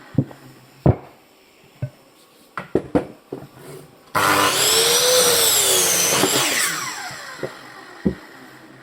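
Electric saw cutting through a piece of firewood in one burst of about two and a half seconds, its motor pitch rising, dipping under load and winding down. Knocks of wood being handled come before and after the cut.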